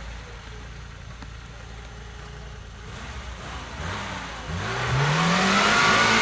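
Off-road 4x4's engine running low and steady, then revved up hard from about four seconds in, its pitch rising and loudness climbing toward the end.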